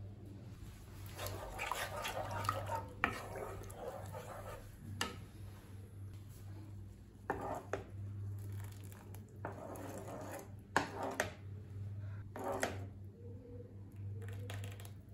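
Steel ladle stirring thick spinach soup in a steel pan, with several sharp clinks of the ladle against the pan between softer scraping and sloshing. A low steady hum runs underneath.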